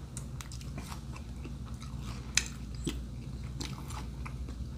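A person chewing a mouthful of brisket sandwich, with scattered short wet clicks and smacks from the mouth, one sharper about halfway through.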